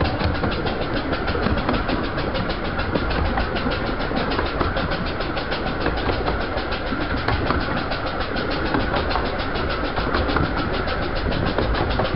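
A 15-inch gauge steam-hauled train running along the line, heard from on board: a steady rumble of wheels on rail with a fast, even pulsing beat.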